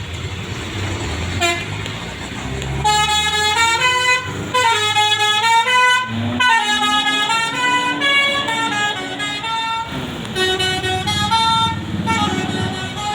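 A bus's multi-tone 'telolet' musical air horn (Basuri type) playing a tune of stepping and sliding notes, starting about three seconds in and running for about ten seconds, over the low running of the bus's engine. A short toot sounds about a second and a half in.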